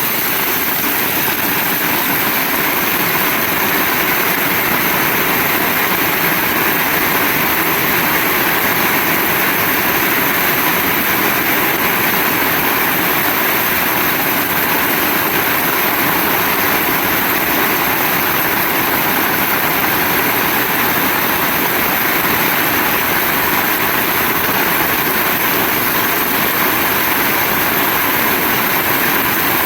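Heavy rain falling hard and without a break: a steady, loud, even hiss.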